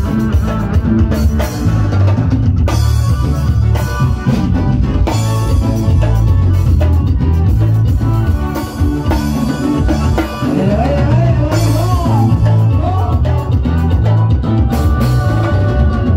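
Loud band music with drums and guitar over a steady bass rhythm, a wavering lead melody coming in about ten seconds in.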